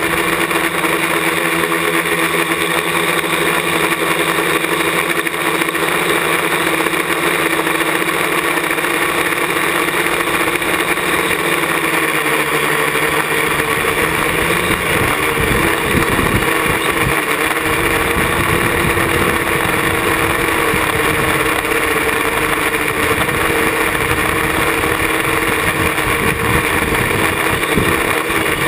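Parallax ELEV-8 quadcopter's brushless motors and propellers whining steadily in flight, heard close up from a camera on its frame. From about halfway through, a rough low rumble of wind buffeting the microphone joins the whine.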